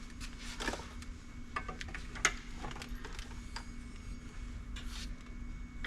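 Scattered light clicks and knocks of metal parts and tools being handled as an on-car brake lathe is detached from the hub and slid back, with a sharper knock a little past two seconds in. A faint steady hum underneath stops about three seconds in.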